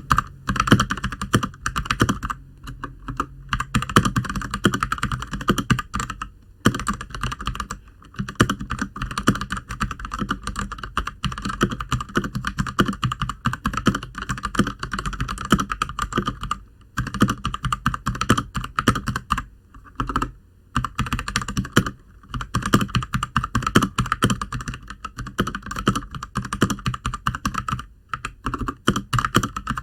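RK61 mechanical keyboard with Gateron Brown tactile switches being typed on quickly and continuously, a rapid stream of key clacks with a few short pauses.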